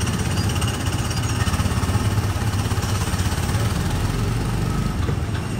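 Small gasoline engine of a Tomorrowland Speedway ride car running at low speed with a steady, rapid, rough putter, heard from the driver's seat.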